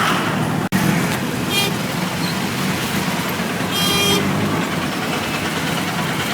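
Busy road traffic with engines running and vehicle horns honking: a short toot about a second and a half in, and a longer honk at about four seconds.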